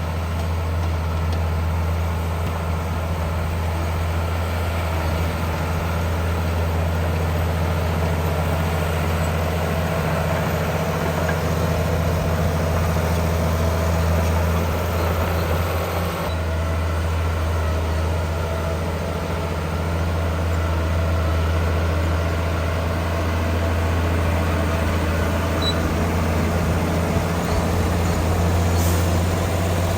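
Heavy diesel engine of construction machinery running steadily: a continuous low drone with no clear revving or impacts.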